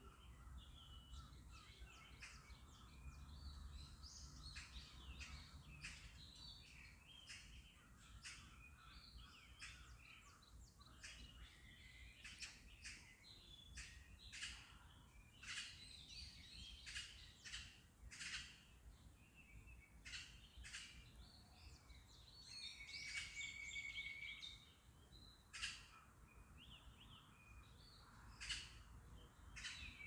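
Birds singing and calling in a park's trees, many short chirps and calls overlapping, with one held whistled note a little over twenty seconds in. A faint low rumble lies underneath.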